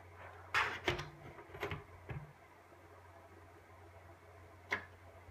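A few knocks and clicks from handling the equipment in the first two seconds, then one sharp click near the end, over a steady low hum.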